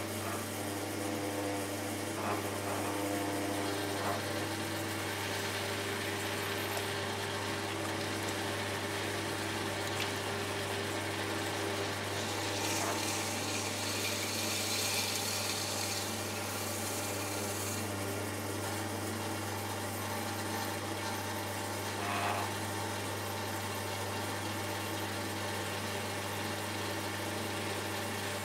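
Shimpo RK10 electric potter's wheel running with a steady hum while wet hands rub against the spinning clay as the bowl is thrown. There is a stretch of hiss around the middle.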